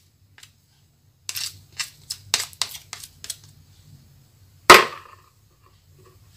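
A metal spoon and spatula clicking and knocking against an aluminium tube cake pan as the last batter is scraped into it. There is a quick run of sharp clicks in the first half, then one loud knock about two-thirds of the way in.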